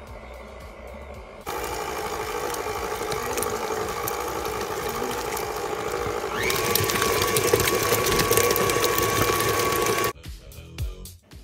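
Tilt-head stand mixer starting up and beating butter in its steel bowl. About five seconds later it switches to a higher speed with a rising whine, runs at the higher pitch, then is switched off abruptly.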